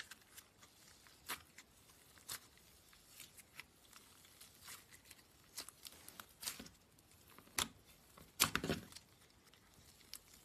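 Slime being squeezed and poked by hand: faint, irregular sticky clicks and small pops, with a quick cluster of louder pops near the end.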